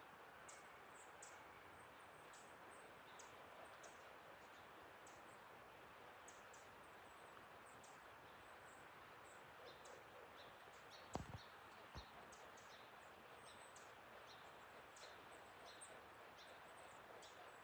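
Small birds chirping faintly with many short, high calls scattered throughout, over a steady soft hiss of forest ambience. About eleven seconds in there is a brief low thud, then a smaller one a second later.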